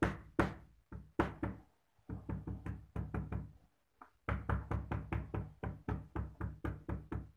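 Cleaver knocking lemongrass stalks against a plastic cutting board to bruise them: a series of sharp knocks, a few spaced strikes first, then quicker runs of about four to five a second from about two seconds in.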